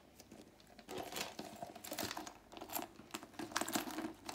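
Irregular rustling and crinkling with many light clicks as a handbag is handled.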